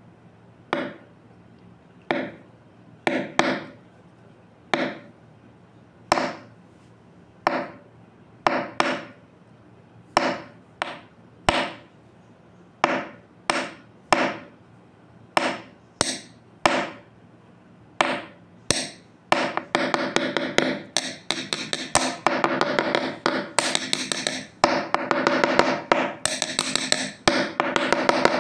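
Repeated sharp blows, like hammering, each ringing briefly. They come about one a second at first, then rapidly and overlapping from about nineteen seconds in.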